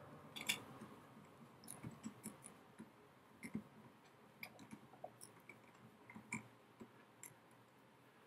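Faint, irregular clicks and small crunches of a 6 mm tap being turned by hand into the end of a metal bar, cutting a thread.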